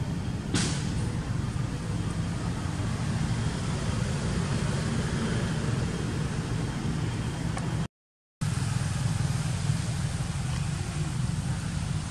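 Steady low rumble with a hiss over it, with no calls standing out. A single sharp click comes about half a second in, and the sound cuts out completely for about half a second near the eight-second mark.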